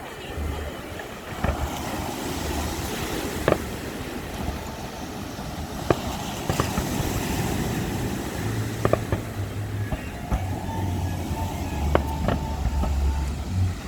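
Wind rumbling on the microphone over outdoor noise, with a handful of sharp pops scattered through.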